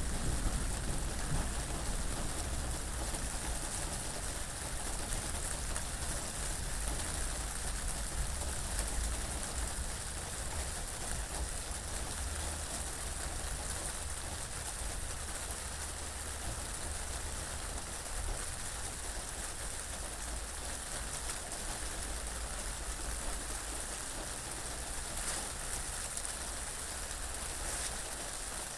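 Steady rain falling, an even hiss of drops with a low rumble of wind beneath it.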